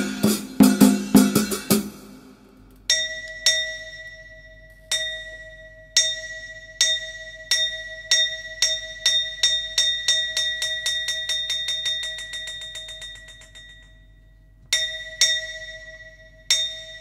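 Chầu văn ritual-music percussion interlude without singing: drum strokes for about the first two seconds, then a small metal gong or bell struck repeatedly, its strokes speeding up into a fast roll that fades away, followed by a few more single ringing strokes near the end.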